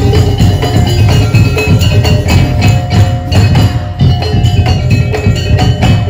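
Daul Madura percussion ensemble playing a fast, dense rhythm: heavy low drumbeats under sharp wooden clacks and ringing metal tones.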